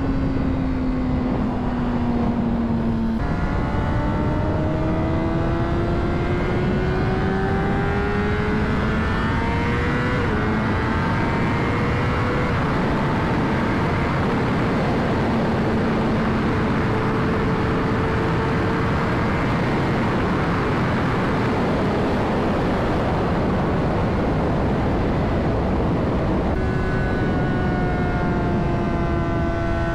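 Honda CBR600RR inline-four engine under way, with heavy wind rush on the helmet mic. Its pitch falls briefly, then climbs through a couple of gear changes, holds steady for a while, sinks under the wind, and falls off again near the end.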